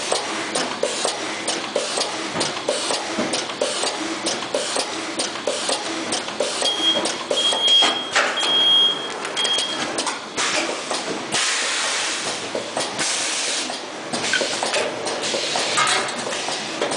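YDA2+P T-shirt plastic bag sealing and cutting machine running: a rapid, regular clatter of knocks from its mechanism, with stretches of hissing. A short high beep sounds four times partway through.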